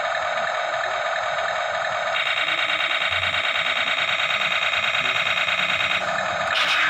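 Toy remote-control battle tank's electronic sound effects from its small built-in speaker: a steady, thin, harsh noise with a fast flutter. It shifts higher about two seconds in and changes again near the end.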